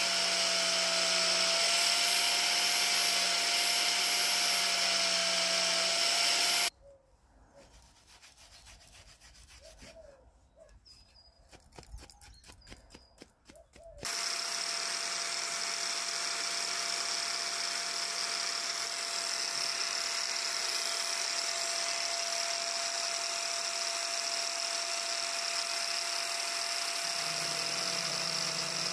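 Electric angle grinder running steadily at speed, its disc working the wood of a hiking stick to carve a hand grip. The motor sound cuts off suddenly about a quarter of the way in, leaving several seconds of faint sound with a few light clicks, then the grinder runs steadily again.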